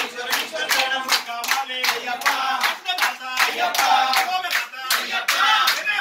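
Group of men singing an Ayyappa bhajan together, clapping their hands in a steady beat of about three claps a second.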